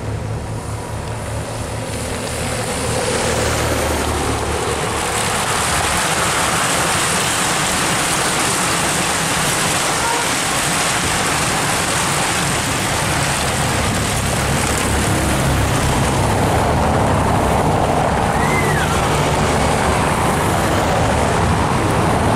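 Race traffic passing on a cobbled road: a peloton of racing bicycles rattling over the cobbles together with the engines of escort motorbikes and team cars, a steady loud rush.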